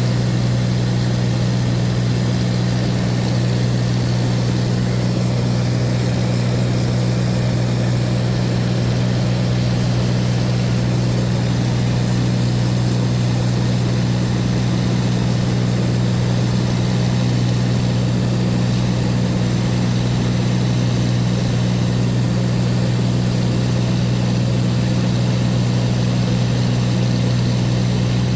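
Steady, loud drone of a light propeller aircraft's engine and propeller heard inside the cabin in flight, an even low hum that does not change.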